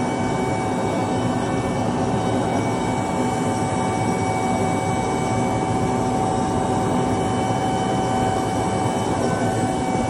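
Seed tender's conveyor and its engine running steadily while soybeans are loaded into an air seeder: an even machine hum with a few held tones over it.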